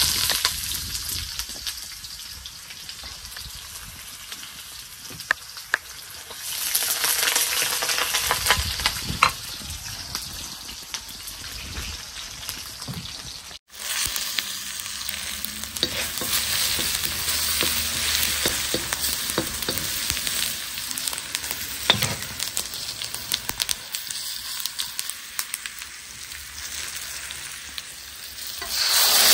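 Onions, dried red chillies and spices sizzling in hot oil in a carbon-steel wok as they are stirred, with scattered clicks and scrapes against the pan. The sound drops out for a moment about 14 seconds in. Near the end the sizzle jumps louder as chopped tomato goes into the hot oil.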